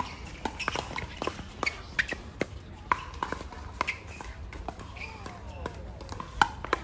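Plastic pickleballs popping off paddles in quick, irregular succession, a sharp hollow pop at each hit, from the rally on the near court and the games on the courts around it.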